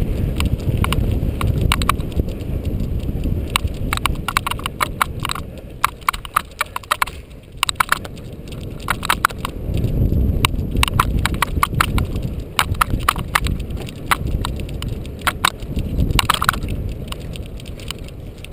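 Cyclocross bike ridden fast over a rough dirt and gravel course: a steady tyre-and-wind rumble with many irregular rattling clicks as the bike jolts over bumps.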